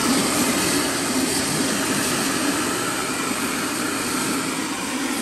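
Shop vacuum running steadily, sucking broken glass and debris out of a skid steer's windshield frame.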